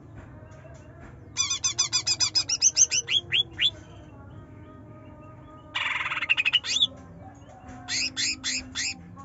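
Cucak ijo (green leafbird) singing in loud bursts of rapid, shrill chirps. A fast run of notes begins about a second and a half in and slows into separate downward sweeps. A dense buzzy burst follows past the middle, and a short run of notes comes near the end.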